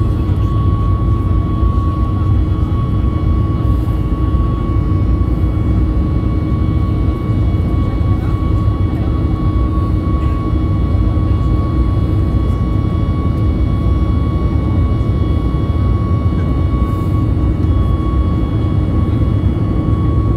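Cabin noise of a Boeing 737 MAX 8 in flight, heard inside the cabin beside the wing: the steady rush of its CFM LEAP-1B turbofans and the airflow, with a thin steady high whine over it.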